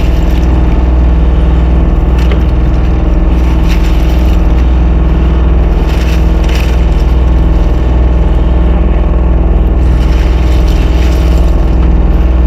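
A fishing boat's engine running steadily at a constant low drone, with a few light clatters over it.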